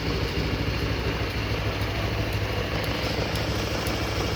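Honda Vario 160 scooter's single-cylinder engine idling with a steady low rumble. A faint regular ticking, about twice a second, comes from the hazard flasher running.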